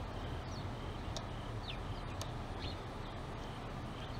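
Faint outdoor background: a steady low rumble with scattered short, high bird chirps.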